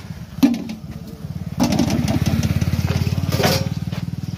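A small engine running close by, a rapid even putter that gets louder about one and a half seconds in.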